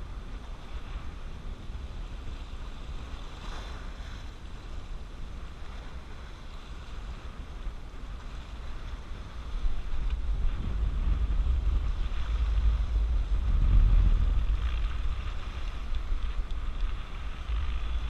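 Wind buffeting the microphone as a low rumble, over waves washing against sea rocks; the wind rumble grows louder about ten seconds in.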